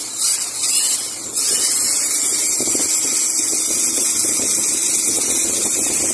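Powerhouse handheld electric drum drain cleaner running, its motor spinning the cable with a loud steady hiss that evens out about a second in.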